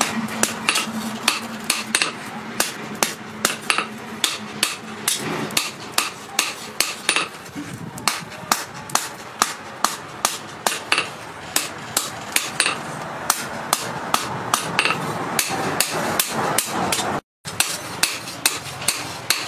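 Hand hammer forging red-hot scrap steel into a knife blade on a steel-post anvil, striking about two to three blows a second. The blows stop for a moment shortly before the end, then carry on.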